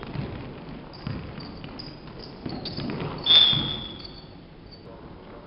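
Basketball game sounds in a sports hall: a ball bouncing and players' footsteps thudding on the court floor, with short high shoe squeaks. A little over three seconds in, a referee's whistle blows once, shrill and about a second long, the loudest sound.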